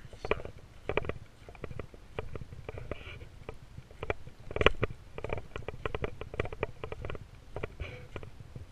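Footsteps through leaf litter on a forest trail: irregular crackling and rustling of leaves underfoot, with one louder crunch about halfway through, over a low rumble of the moving camera.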